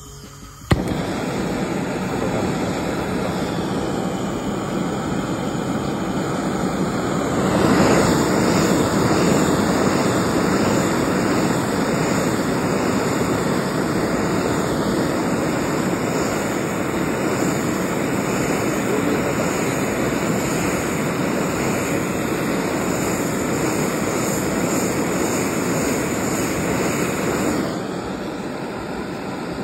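Gas burner torch lit with a click about a second in, then running steadily as it heats a polished aluminium piston crown. It gets louder about 7 seconds in, eases off near the end and shuts off.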